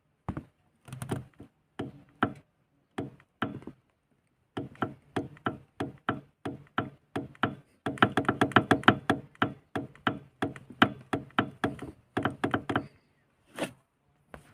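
Rapid, irregular knocks and taps at the left side of a VAZ (Lada) car's dashboard. They come in uneven bursts, densest and loudest about halfway through.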